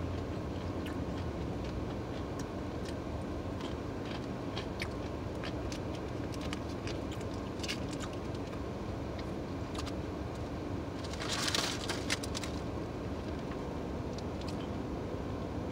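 Eating sounds of wet chewing and lip smacks, with the crinkle of a small paper food packet being handled, over a steady low hum inside a car. About eleven seconds in there is a louder paper rustle lasting about a second.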